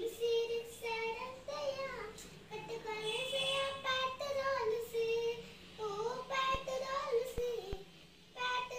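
A young child singing softly to himself, a wandering tune of held and sliding notes without clear words, with a short break before a last phrase near the end.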